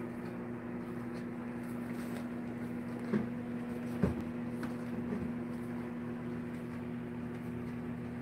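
A steady electrical hum, like a running kitchen appliance, with two short knocks about three and four seconds in.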